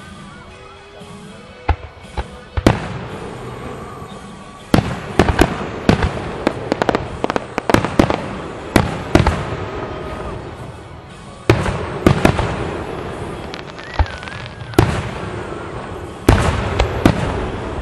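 Aerial fireworks shells bursting overhead. A few single bangs come in the first seconds, then rapid clusters of sharp bangs and crackle: a long run around the middle and another near the end.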